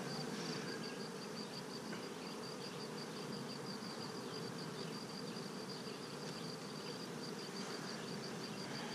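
A mass of honey bees buzzing steadily on and around frames lifted from an open hive.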